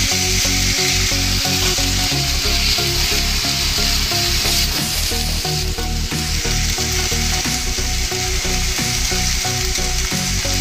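Grated onion with garlic, ginger and chilli paste sizzling steadily in hot oil in a non-stick kadai, with a wooden spatula scraping and stirring it through the pan.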